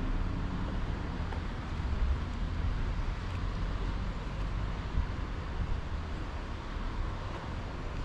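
Outdoor ambience: a steady low rumble with an even hiss above it, with no distinct events or bird calls standing out.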